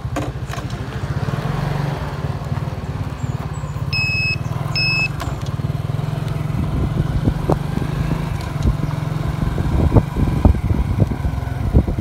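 Small motorcycle engine running steadily while riding, with road and wind noise around it. Two short, high electronic beeps sound about four seconds in, and sharp knocks and rattles from the ride grow frequent in the second half.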